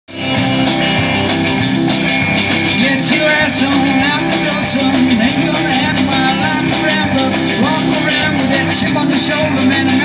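A live band playing a song through a PA system: electric and acoustic guitars over a drum kit, loud and continuous.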